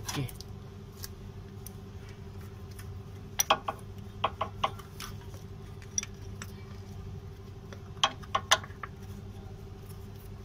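Sharp clicks and taps of a plastic oil filter wrench being fitted and adjusted around a car's spin-on oil filter canister, in a few short clusters, the loudest about three and a half and eight seconds in. A steady low hum lies underneath.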